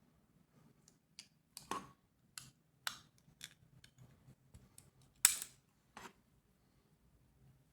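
A series of short, sharp snips and clicks as the old rubber O-ring is cut off a compressed-air quick coupler, the loudest about five seconds in.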